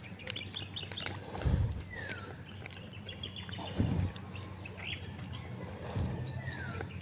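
Outdoor pond-side ambience: insects chirp in rapid trains, and a bird gives a short falling whistle twice. A few dull low thumps come through near the start and in the middle.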